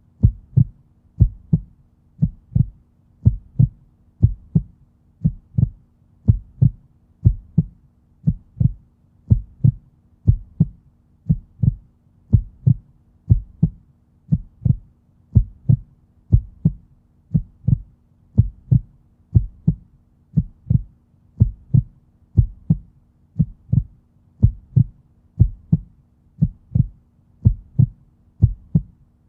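Heartbeat, a steady, slow lub-dub with each beat a pair of low thumps, about one beat a second, over a faint steady hum.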